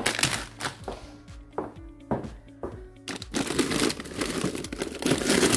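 Plastic bags of frozen vegetables crinkling and rustling as they are handled and shifted in a freezer drawer, with short clicks and knocks of packages against the plastic bin, loudest about three and a half seconds in and again near the end. Background music plays faintly underneath.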